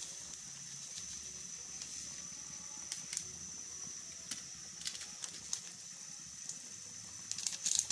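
Steady faint hiss with scattered light clicks, then a plastic seasoning sachet crinkling in the hand near the end.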